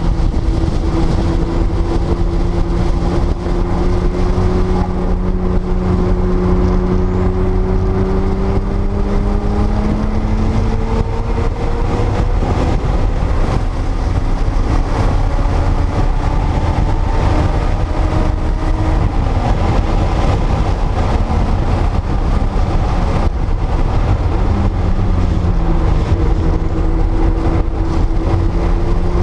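A 1979 Porsche 930 Turbo's turbocharged, air-cooled 3.3-litre flat-six running hard under load over a heavy low rumble. The engine note climbs slowly for about the first ten seconds, then falls off sharply about 19 and again about 24 seconds in.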